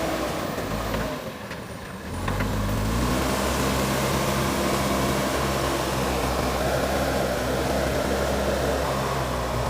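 JCB backhoe loader's diesel engine running. It drops quieter for about a second, then picks up again, rising in pitch about two seconds in, and holds a steady note.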